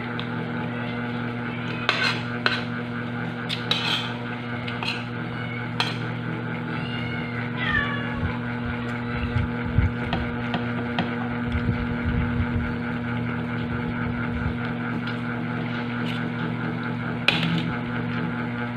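Cutlery clinking sharply on plates during a meal, a few scattered clicks, over a steady mechanical droning hum. A short high wavering call sounds about seven seconds in.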